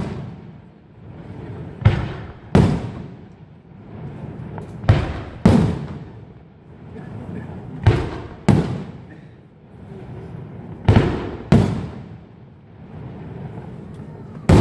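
Aerial firework shells bursting overhead: pairs of sharp bangs about half a second apart, repeating about every three seconds, each bang trailing off.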